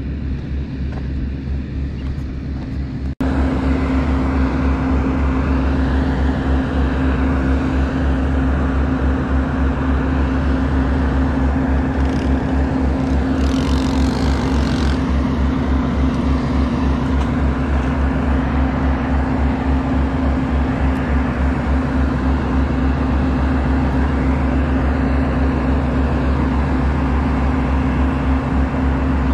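An engine running steadily at an even speed, a low drone with a constant hum. It drops out sharply for an instant about three seconds in and comes back louder.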